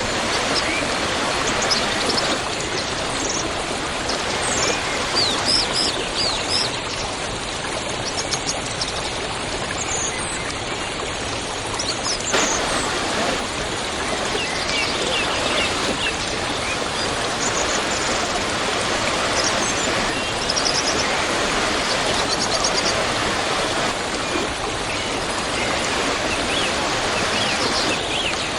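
Waterfall rushing steadily, with birds chirping briefly now and then over the water.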